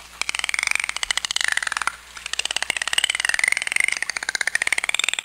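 Dolphin whistles over a fast train of clicks. The whistles rise and fall in pitch, with a brief lull about two seconds in.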